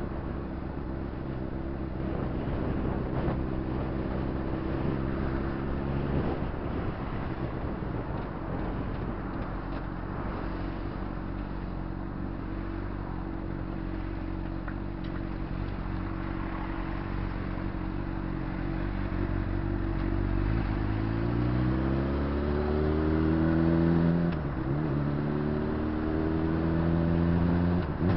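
Motorcycle engine running at steady revs under wind and road noise, then accelerating about 20 s in, the pitch rising, dropping sharply at an upshift and rising again, with another shift near the end.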